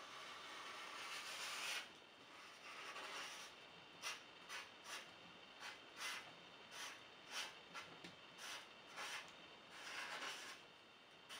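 Black felt-tip marker drawing on paper. A long stroke comes first, then a quick run of short strokes as letters are written, and another longer stroke near the end.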